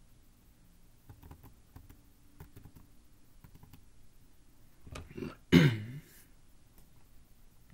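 Faint clicks of a computer mouse, then about five and a half seconds in a short, loud throat-clearing noise from the person at the desk.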